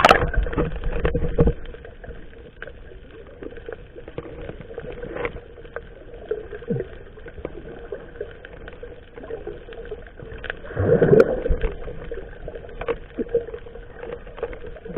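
Working noise aboard a small fishing boat at sea: water and knocks against the hull, with a faint steady hum underneath. It is loudest in the first second and a half, and again about eleven seconds in.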